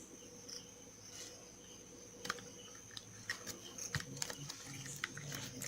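Faint, scattered light clicks and taps of plastic headphones being handled, over a faint steady hum and high whine.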